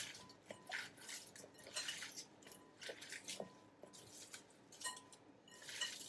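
Hands squeezing and working salt into sliced red onions, a faint, irregular wet crackling and rustling of the slices as they are pulled apart.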